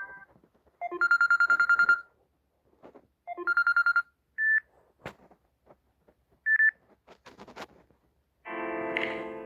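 Samsung Galaxy A7 ringtone: a telephone-style ring of fast-pulsing electronic tones in two bursts, then two short higher beeps and a sharp click. A different, melodic ringtone starts near the end.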